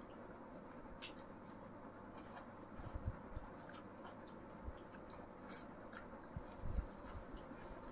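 Quiet eating by hand: fingers working noodles on steel plates and chewing, heard as scattered small clicks and taps, with a few soft low thumps about three seconds in and again near the end.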